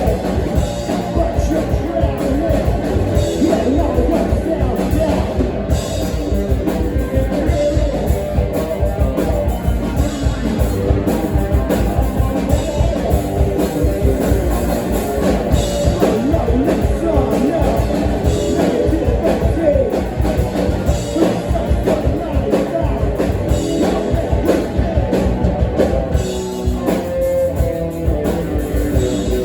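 Live rock band playing loud, with guitars, bass and a drum kit pounding steadily, and a voice singing over them.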